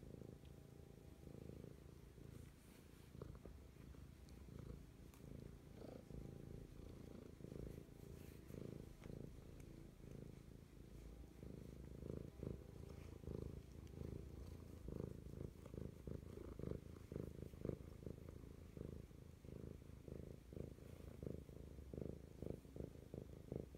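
Orange tabby cat purring steadily as it is stroked on the head: a quiet, low rumble.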